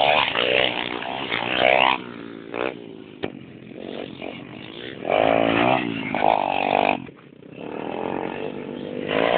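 Small-displacement pit bike engines revving hard as the bikes race by, the pitch climbing and dropping several times as they accelerate and shift. They are loudest at the start, in the middle and again near the end, with a brief lull a little after two-thirds of the way through.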